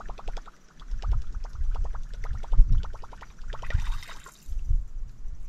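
A lure being reeled in on a rod and reel: a rapid, even ticking for the first three seconds or so, ending in a short splashy hiss near four seconds as the lure comes up out of the water. Low thumps of handling run underneath.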